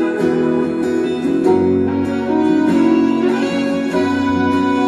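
Recorded instrumental music led by violins, with plucked strings underneath and notes changing every half second or so.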